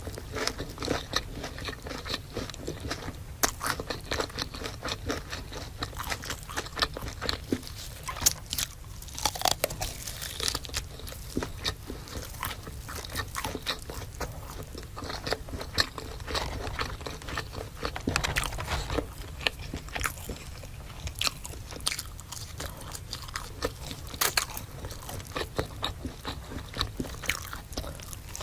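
Close-miked biting and chewing of crunchy fried food, an irregular stream of sharp crunches and crackles.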